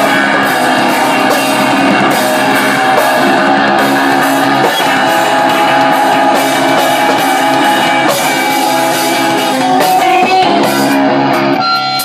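Loud rock music with electric guitar and drums.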